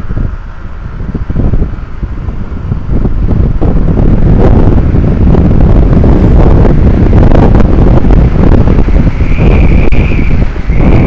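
Heavy wind buffeting on the microphone of a Yamaha Mio M3 scooter accelerating at full throttle. The rushing grows loud about three seconds in and stays loud.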